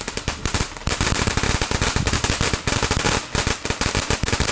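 A ground firework going off: a dense, unbroken run of sharp cracks and pops, many each second, like a crackling fountain or a string of firecrackers.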